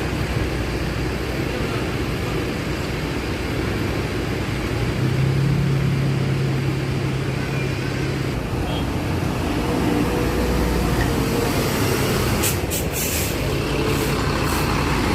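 Intercity bus diesel engine running, swelling to a louder low hum for a few seconds about five seconds in. Short sharp air-brake hisses come near the end.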